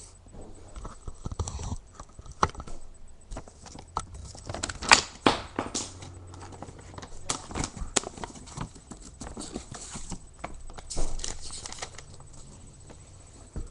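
Handling of packaging and small plastic parts: irregular clicks, taps and short rustles, with a cluster of louder clicks a few seconds in.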